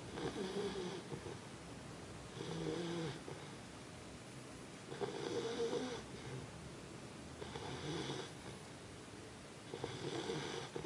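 A 4½-month-old pet snoring in its sleep, about one snore every two and a half seconds, five in all, with quieter breathing between. Her snore sounds like an adult's.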